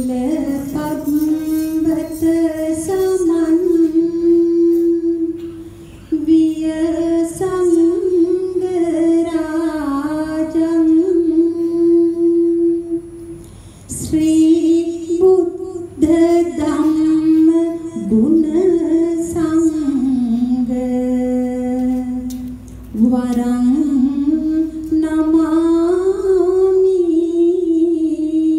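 Music for a Sri Lankan pooja (offering) dance: a woman singing a slow, drawn-out melody in long held phrases, with short breaks between them. Brief bursts of high jingling come in now and then.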